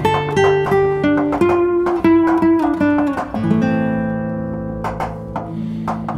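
Background music on a plucked acoustic guitar: single notes in quick succession, then a chord left ringing for a couple of seconds before fresh plucks near the end.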